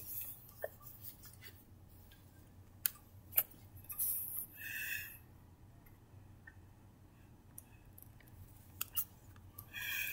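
Faint taps and handling noises as a hand works a tablet's touchscreen, with a short high tone about four seconds in and again near the end.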